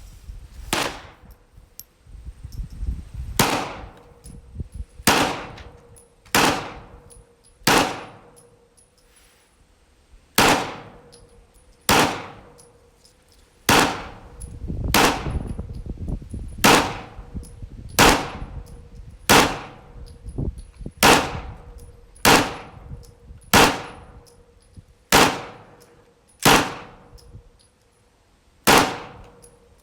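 Smith & Wesson M&P M2.0 9mm pistol firing PMC Bronze 115-grain rounds: single shots at a steady, unhurried pace of about one every second and a half, each a sharp report that fades over about a second.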